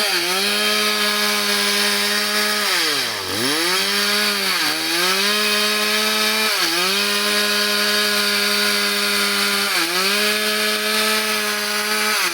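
Chainsaw running at high revs, its engine note dropping briefly and recovering about five times, with the deepest dip about three seconds in.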